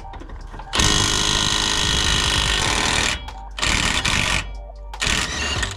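Impact wrench hammering in three bursts, a long one of about two seconds and then two short ones, breaking loose a truck's axle nut.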